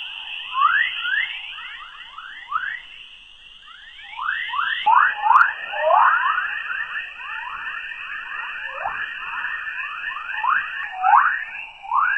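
Space sound recording converted to audio: a steady high tone under a dense series of quick falling whistles, several a second, which grow thicker and louder about five seconds in, where the steady tone steps slightly lower.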